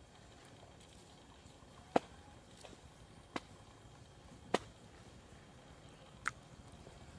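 Four sharp, separate clicks spaced a second or two apart, over a faint steady background hiss.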